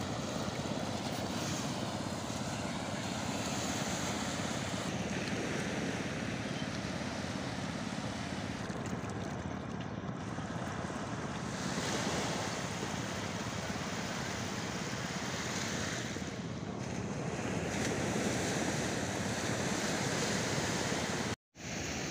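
Small waves washing up a flat sandy beach, a steady rush of surf with slow swells, with wind on the microphone. The sound drops out for an instant near the end.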